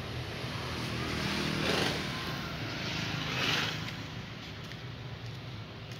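Road traffic passing, mainly motorbike engines, swelling about two seconds in and again about three and a half seconds in, then fading.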